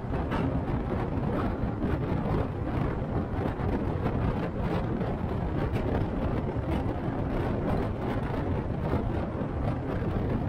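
City bus heard from inside the cabin while under way: a steady rumble of engine and road noise, with frequent light rattles.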